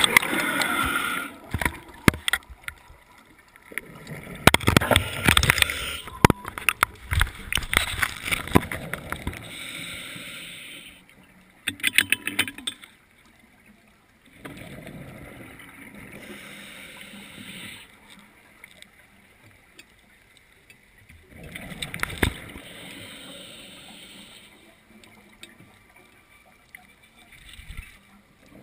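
Scuba diver breathing through a regulator underwater: bursts of exhaled bubbles rumbling and crackling, several seconds apart, with softer steady hissing and short lulls between them.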